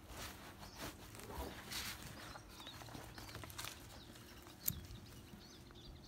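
Faint rustling of nylon ratchet-strap webbing being handled and pulled to take out slack, with one sharp click about three-quarters of the way through.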